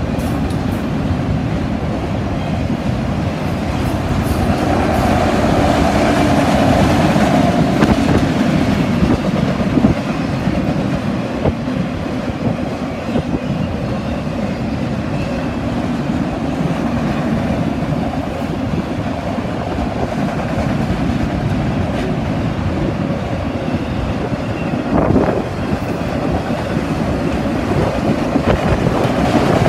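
Norfolk Southern freight train rolling past steadily, with wind buffeting the microphone.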